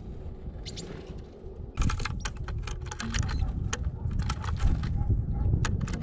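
Birds' claws and beaks tapping and scratching on a plywood bird feeder: irregular sharp clicks that grow denser about two seconds in, over a steady low rumble.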